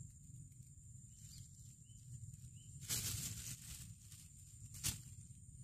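Faint outdoor ambience with a steady high-pitched hum and low rumble. A brief rustle comes about three seconds in, and a sharp click about a second later.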